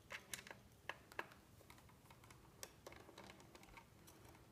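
Faint scattered clicks of a screwdriver working the small screws out of a laptop's hard drive bracket, metal tool on metal screws. A few sharper ticks come in the first second or so, then lighter ones.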